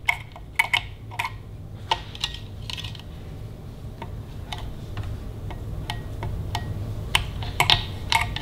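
A thin metal rod, used as a magnet test, clicking and tapping against the steel nuts that hold the binding posts to the terminal plate: about a dozen light, irregular metallic clicks, each with a brief ring. The nuts prove to be ferromagnetic steel. A steady low hum sits underneath.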